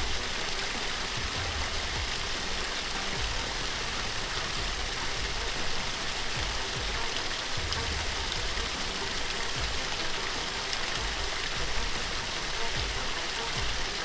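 Wildebeest herd crossing a river: a steady rush of churned, splashing water with many low thumps of bodies and hooves in the water.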